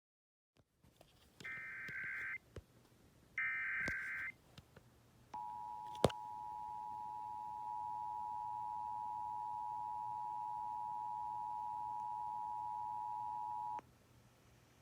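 Emergency Alert System test tones: two short bursts of the SAME digital header's warbling data tones, then the two-tone EAS attention signal (853 and 960 Hz together) held steady for about eight seconds, with a sharp click near the start of the tone.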